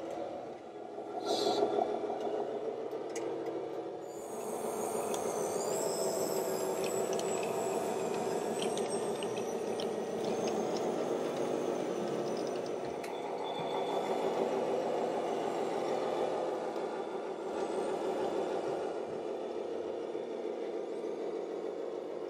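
Radio-controlled scale model trucks and construction machines running, a steady engine-like drone. There is a brief loud burst about a second and a half in, and a high wavering whine from about four to nine seconds in.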